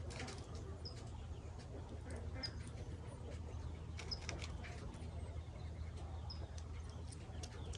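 Small clicks and ticks of Crosman Copperhead pellets being handled from their tin and pressed into an air rifle's magazine. A bird chirps a short high note every second or two over a low steady background rumble.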